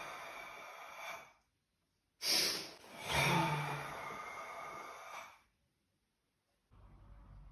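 Forceful, controlled karate breathing of the kind used in Hangetsu kata: a breath fades out about a second in, then a short sharp breath is followed by a long breath that slowly fades over about three seconds.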